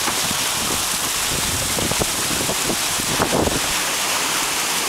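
Steady rush of a boat's churning wake and choppy sea, with wind buffeting the microphone in irregular gusts.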